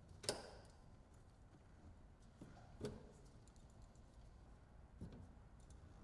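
A few faint, short plastic clicks a couple of seconds apart against near silence: push-pin rivets being pried out of a plastic dash cover with pliers.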